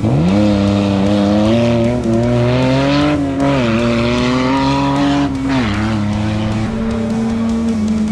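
Off-road race vehicle's engine revving hard as it pulls away, its pitch climbing steadily. It drops sharply about five and a half seconds in, then holds a steady note.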